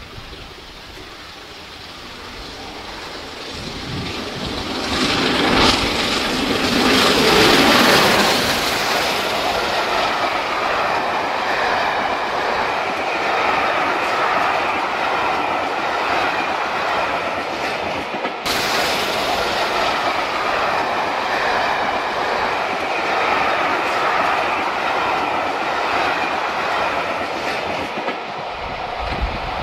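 Peppercorn A1 Pacific steam locomotive 60163 Tornado passing at speed, its sound building to a peak about seven seconds in. Then comes the long train of coaches rolling past, a steady noise of steel wheels running on the rails.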